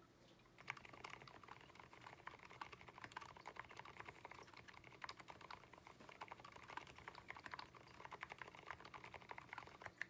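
Continuous fast typing on an Abko AR87 tenkeyless mechanical keyboard fitted with fully lubricated Aliaz silent tactile switches: a quiet, dense run of soft key clacks, starting about half a second in and stopping near the end.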